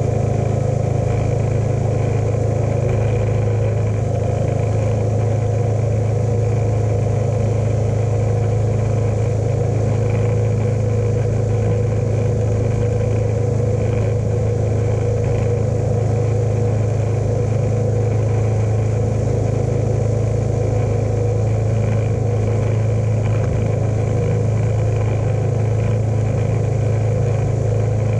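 John Deere lawn tractor engine running at a steady speed, a constant low drone with no change in pitch.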